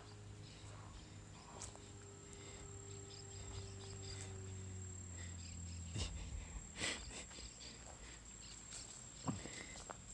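Quiet outdoor ambience: a steady high-pitched whine throughout and a low hum that stops about six seconds in. Scattered light crackles and a few soft knocks come from footsteps on dry leaf litter.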